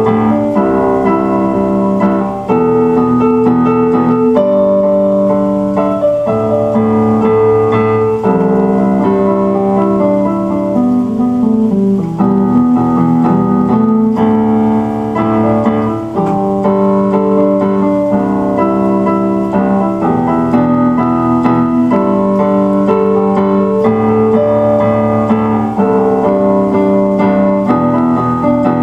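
Instrumental piano music, held chords changing every second or two at an even level.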